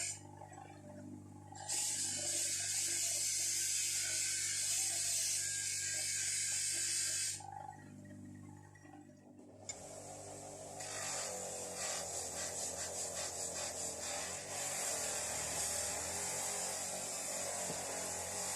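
Electric motor of a spinning workshop wheel running with a steady hum, while a rusty steel spanner is pressed against the wheel to clean or abrade it. It gives a loud, even scraping hiss in two long stretches, the first ending about seven seconds in and the second starting about ten seconds in.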